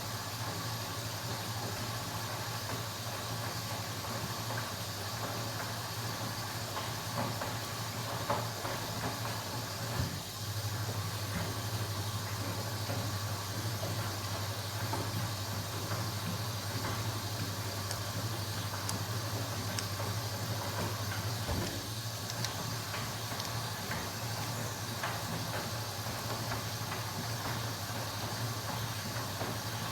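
Washing machine running: a steady low hum with a hiss over it, and a few faint knocks.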